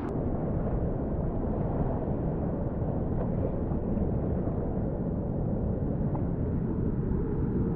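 Steady rushing of river whitewater, an even, dense rush with most of its weight low down.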